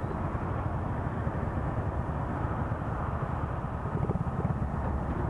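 Four-stroke moped engine idling while the bike is stopped, a steady low sound, with city traffic around it.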